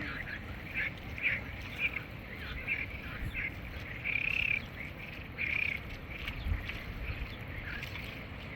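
Repeated short animal calls, one every half second or so, with a longer call about four seconds in, over a low rumble.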